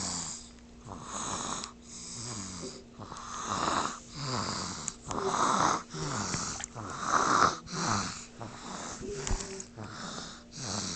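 Loud snoring, about one snore a second, each breath rough and wheezy with whistling tones.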